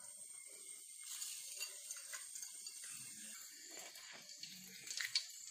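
Cardamom pods frying in hot oil in a steel pot: a faint, irregular crackle and sizzle, with one sharper tick near the end.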